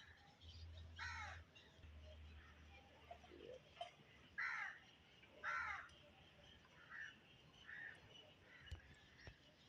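Crows cawing: three loud, harsh caws about a second, four and a half and five and a half seconds in, then several fainter calls.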